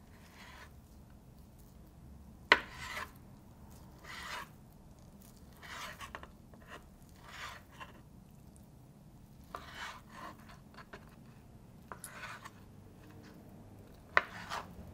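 Kitchen knife cutting boiled beef tongue into cubes on a cutting board: about a dozen short cutting strokes a second or so apart, with the blade knocking on the board, sharpest about two and a half seconds in and again near the end.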